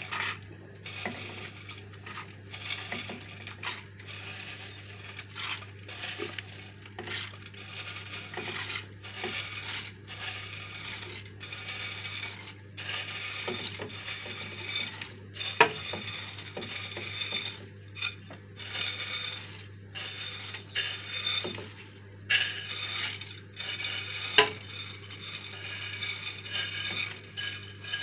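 Dry fusilli pasta pouring from a glass bowl into a metal cooking pot, the pieces rattling and clinking against each other and the pot, with a couple of sharper clicks partway through.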